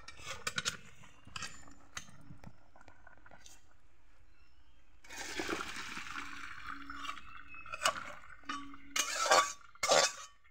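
Parboiled giant taro and potato pieces with their hot water tipped from a kadai into a plastic colander, draining off the salted parboiling water: a few metal clinks as the pan is lifted, a splashing rush of water about five seconds in, then several sharp knocks near the end as the pan is shaken and tapped over the colander.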